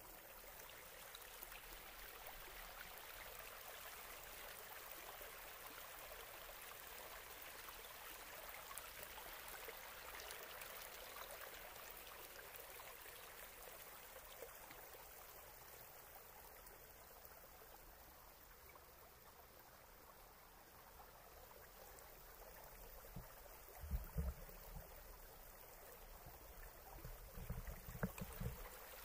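Creek water running steadily over rocks and a jam of branches in a small cascade: a faint, even rush. Several low thumps in two short clusters near the end.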